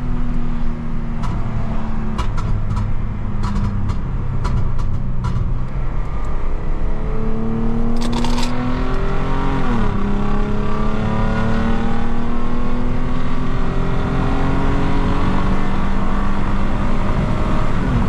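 Lexus IS250's V6, ECU-tuned with a pops-and-bangs map and its exhaust valves closed, crackling with a run of sharp pops in the first few seconds. It then revs up under acceleration, drops in pitch at a gear change about ten seconds in, and climbs steadily again.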